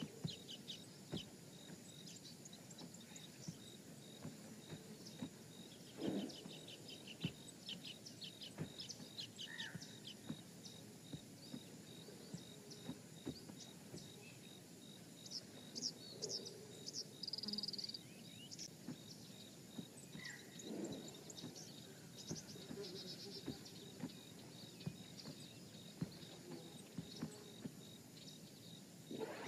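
Quiet outdoor nature ambience: an insect chirping in a steady, even pulse, with scattered short bird chirps and a few low animal calls, the clearest about six seconds in and again around twenty-one seconds.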